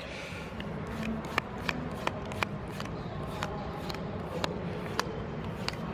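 Magic: The Gathering cards being handled and sorted by hand: soft sliding and irregular sharp little clicks as cards snap against each other. A steady low background hum runs underneath.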